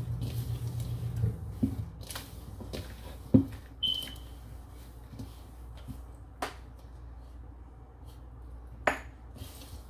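Hands working a crumbly sugar, flour and shortening paste in a plastic mixing bowl, with a few sharp knocks and taps against the bowl, the loudest about three seconds in. A low hum stops about a second in.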